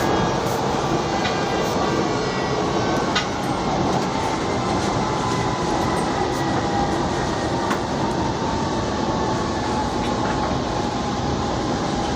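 Inside a Kochi Metro train car running between stations: a steady rumble of wheels on the track, with a faint, steady whine and a few scattered clicks.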